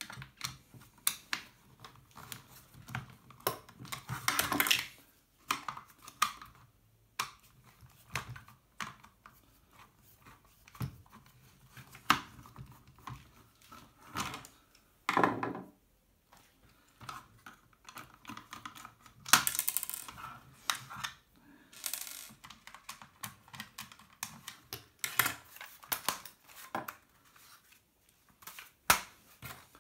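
Small-parts handling on a wooden tabletop while a cordless drill's plastic clamshell housing is unscrewed and taken apart. Irregular clicks, taps and rattles come from screwdrivers, small steel screws dropped onto the table and the plastic housing being handled, with a few longer scraping, rustling bursts.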